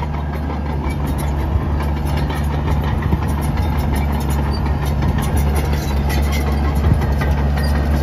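New Holland D95B XLT crawler dozer's diesel engine running steadily under load as the machine pushes rock and dirt with its blade, with a few light knocks over the engine hum.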